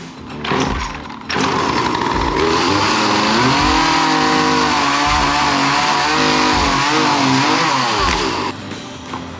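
Gas chainsaw running and cutting, its engine pitch dipping and rising under load; it starts about a second in and stops near the end. Background music with a steady beat plays under it.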